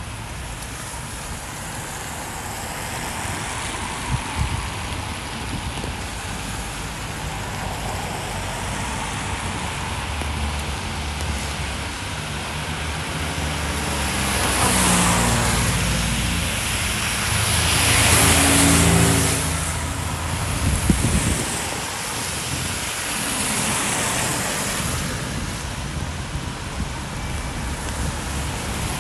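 Vehicles passing one after another on a rain-wet road, tyre hiss swelling and fading as each goes by; the loudest pass, a little past halfway, has an engine hum under it. A steady hiss of rain lies underneath.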